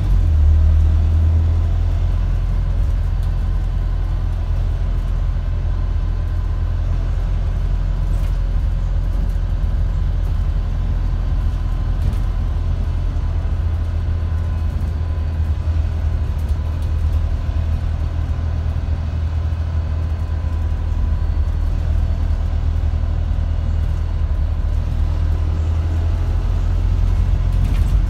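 Steady low rumble of a Wright StreetDeck double-decker bus under way, its engine and running gear heard from inside on the upper deck, with a few faint rattles.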